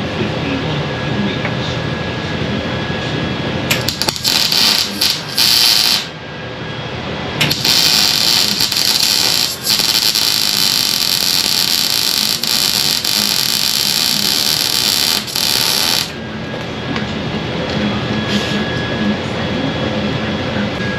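Wire-feed welder arc crackling as it welds sheet-metal rocker panels: a few short tacks about four seconds in, then a continuous bead lasting about eight seconds. A steady hum runs underneath.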